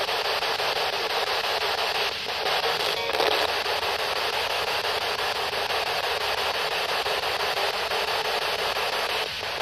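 A P-SB11 spirit box radio gives out a steady hiss of radio static through its small speaker, broken briefly about two, three and nine seconds in.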